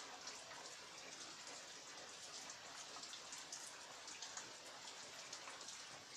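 Heavy rain falling steadily: an even hiss dotted with many small, sharp drop taps.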